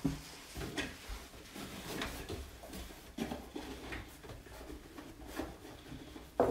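Cardboard box and packaging being handled: scattered rustles, light knocks and clicks of small items, with one sharper knock near the end.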